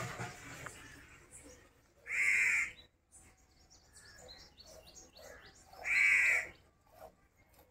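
A bird calling loudly twice, each call a little over half a second long, about four seconds apart.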